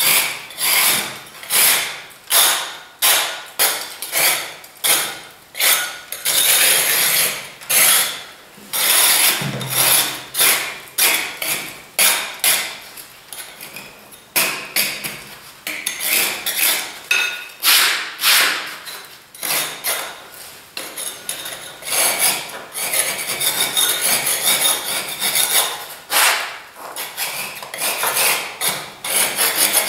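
Steel spatula or trowel scraping dried plaster bumps off wall corners, in repeated short scraping strokes, about one or two a second, to clean the corners before aluminium corner beads are fixed.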